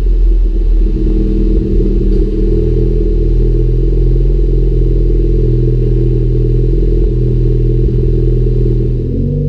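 A 2014 Ford Focus ST's 2.0-litre turbocharged four-cylinder idling steadily through a Magnaflow exhaust, a low, even rumble with no revving.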